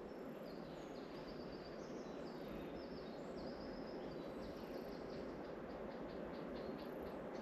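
Small birds chirping, breaking into a quick run of short repeated notes in the second half, over a steady rushing background noise that slowly grows louder.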